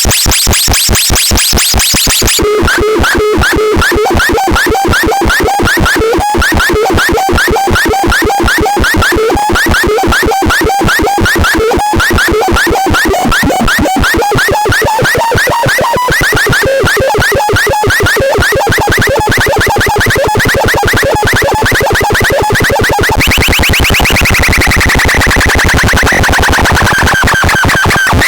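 Electronic sound-effect device playing loud, rapidly pulsing synthesized tones that jump and warble in pitch. The pattern changes several times, and near the end a pitch sweep drops down.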